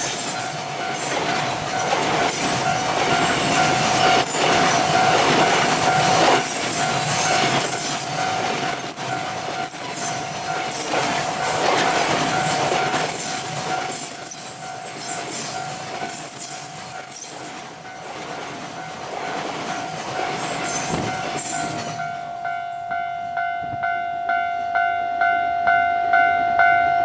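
Freight wagons rolling past, clattering over rail joints with some wheel squeal. A Japanese level-crossing warning bell rings steadily, about two strikes a second, all through. About 22 s in the train noise falls away and the bell is heard alone until it stops at the very end.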